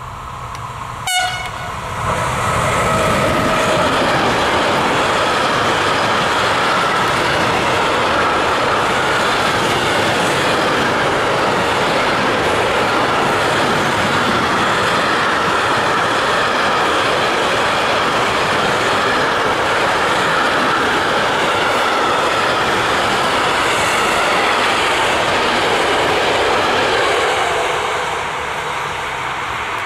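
Class 189 electric locomotive hauling a container freight train past: a brief horn toot about a second in, then a long steady rumble and clatter of the wagons rolling by, dropping away near the end.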